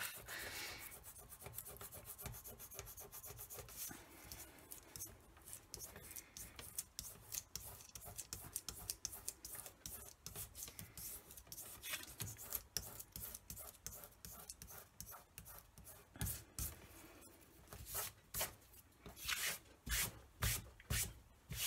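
Fingertips rubbing dried masking fluid (Pebeo drawing gum) off a stamped cardstock panel, peeling it away in rubbery bits: a long run of quick, soft, scratchy rubbing strokes. The strokes turn louder and sharper in the last few seconds.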